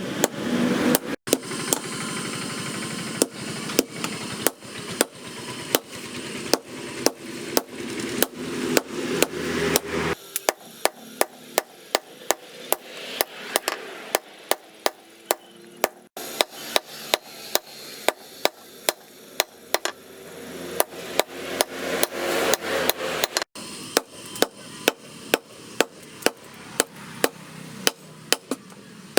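Hand hammer striking steel on an anvil, forging leaf spring steel, in a steady run of sharp ringing blows about one to two a second. A steady rushing noise runs under the blows for the first third, and the run breaks off abruptly a few times.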